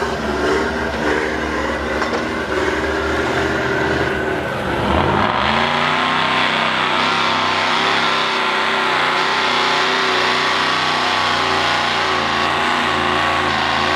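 Mud truck's Ford 460 big-block V8 running at lower revs, then about five seconds in jumping to higher, steady revs as it drives through a mud pit.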